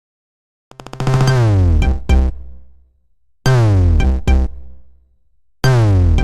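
A stock Android electronic phone tone: a deep synthesizer note sliding down in pitch over heavy bass, followed by two short hits. The phrase plays three times, about every two and a half seconds, starting about a second in.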